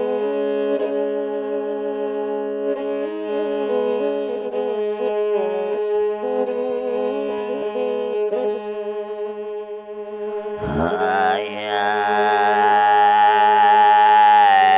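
Bowed string instrument playing a wavering melody over a steady drone. About ten and a half seconds in, a deep voice comes in over a low drone with a strong ringing overtone, as in Siberian throat singing, and the sound grows louder.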